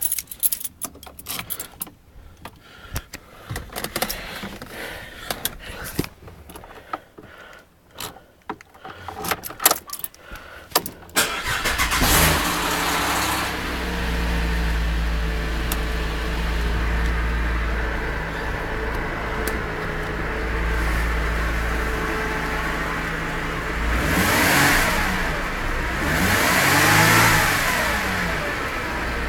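Scattered clicks and knocks, then a Holden VZ SV6 Commodore's 3.6-litre Alloytec V6 starts about halfway through after standing unused for a couple of weeks and settles into a steady idle. Near the end it is revved twice, first briefly, then for longer, rising and falling back to idle.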